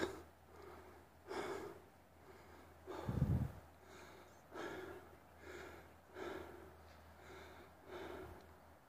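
A hiker breathing hard and fast, a breath roughly every second, out of breath from climbing a steep trail. A low thump about three seconds in.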